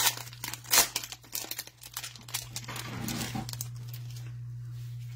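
Foil trading-card pack being torn open and crinkled: a quick run of sharp crackles over the first two seconds or so, then quieter handling as the cards come out.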